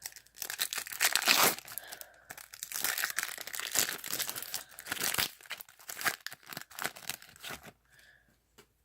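Foil wrapper of a Topps Chrome football card pack being torn open and crinkled: dense crackling, loudest about a second in, dying away near the end.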